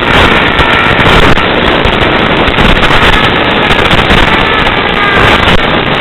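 Loud, harsh, steady noise from an FPV model aircraft's analog video downlink audio, with faint whining tones that drift up and down in pitch.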